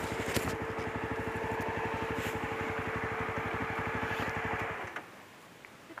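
Yezdi Roadster's single-cylinder engine idling with an even beat at a standstill, then switched off: it cuts out suddenly about five seconds in.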